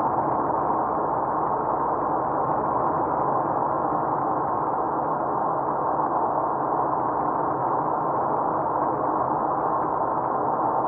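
Steady road noise of a car driving, heard inside the cabin: an even hiss and rumble that does not change.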